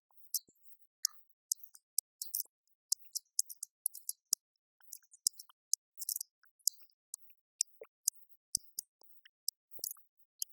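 Irregular light, high-pitched clicks, several a second, with short gaps between clusters.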